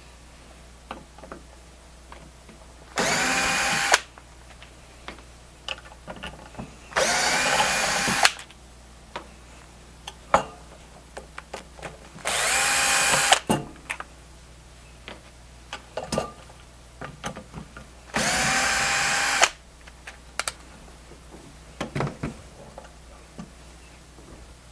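Cordless screw gun unscrewing the handle screws from a refrigerant charging manifold's valves. Its motor whines four times, about a second each, with small clicks and knocks of the handles and screws being handled in between.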